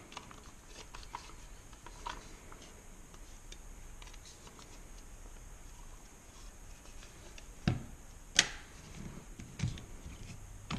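Gear Head Works Tailhook Mod 2 pistol brace being adjusted by hand on an AR pistol: soft handling ticks, then two sharp clicks about three-quarters of the way in as the brace locks into a new position, followed by a few soft knocks.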